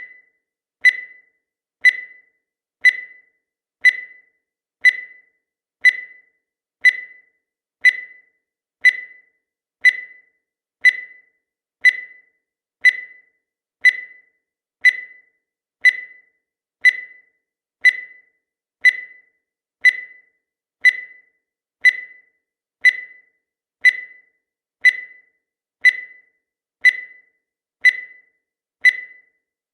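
Countdown timer sound effect: a short electronic beep once a second, each one high-pitched and dying away quickly.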